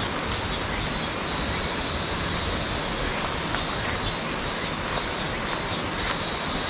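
Steady rushing of water, with a high buzzing call over it, in short pulses about three a second that alternate with longer held stretches.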